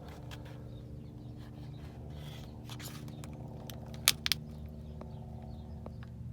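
Small metal clicks and taps as a just-removed spark plug is handled with a socket wrench, with two sharp clicks about four seconds in, over a steady low hum.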